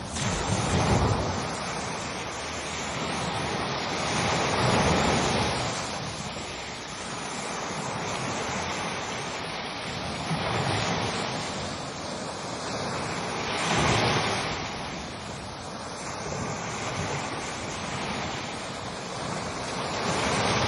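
Ocean waves breaking and washing on a shore: a continuous surf hiss that swells and fades every few seconds. The biggest breakers come about a second in, around five seconds, around fourteen seconds and right at the end.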